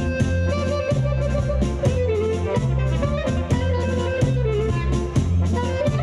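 Lively instrumental music with a steady beat, strong bass and a melody line.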